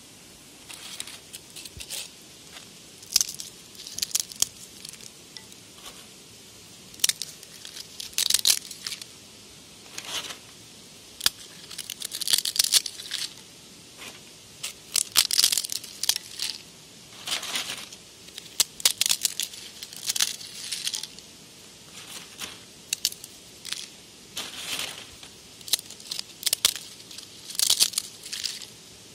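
Dry, crisp flatbread torn apart by hand into small pieces, giving short crackling tears at irregular intervals, about one a second with brief pauses.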